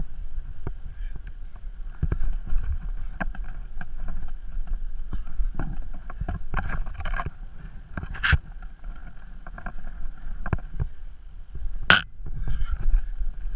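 Climber's hands, shoes and clipped gear scuffing, scraping and knocking against granite, heard close up over a low rumble of wind on the helmet-camera microphone. Two sharp clacks stand out, about eight and twelve seconds in.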